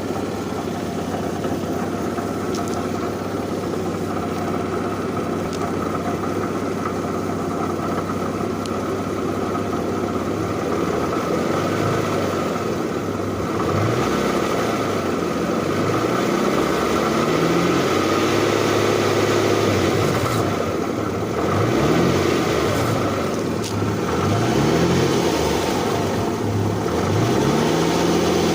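2008 Infiniti M35x's V6 engine idling steadily, then revved up and back down several times from about halfway through, with the rattling noise that its owner is asking for help to diagnose.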